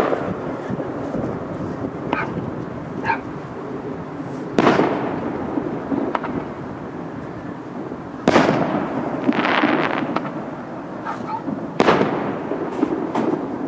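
Fireworks display: three loud booms of aerial shells bursting a few seconds apart, with smaller pops between them and a crackling trail after the second boom.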